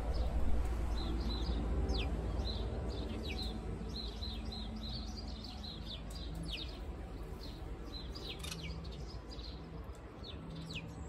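House sparrows chirping at a garden seed feeder: a busy, continuous run of short repeated chirps and quick falling notes, over a steady low rumble.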